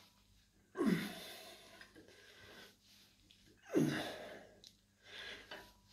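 A man grunting and exhaling hard with the effort of barbell curl reps, twice, about three seconds apart, each grunt dropping in pitch, with a softer breath near the end.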